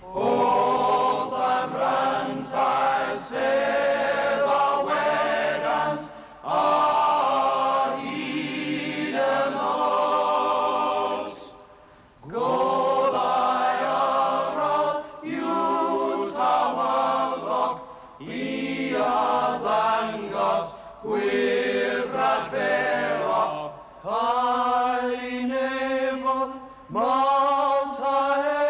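Male voice choir singing together in harmony, in phrases of a few seconds with short breaks between them.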